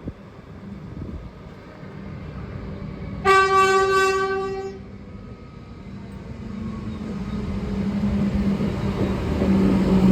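Horn of a Comeng electric suburban train sounding one loud blast about a second and a half long, about three seconds in. After it the train's approach noise grows steadily louder, with a low steady hum.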